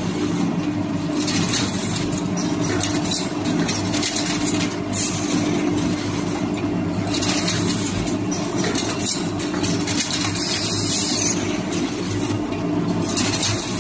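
Mushroom substrate processing machinery running steadily: a constant mechanical hum under a noisy hiss that swells and fades several times.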